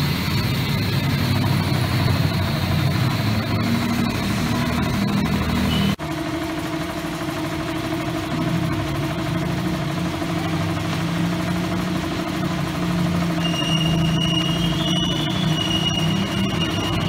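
Yamaha Sniper 150's single-cylinder engine, fitted with a dry clutch, idling steadily. The hum changes abruptly about six seconds in, and a faint high whine joins near the end.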